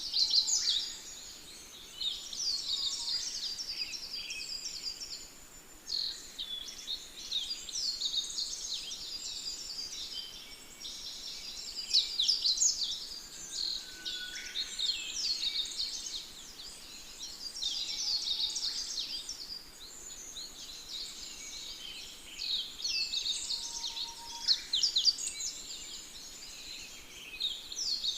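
A chorus of many small songbirds singing at once, with overlapping high, quick chirps and song phrases that go on without pause.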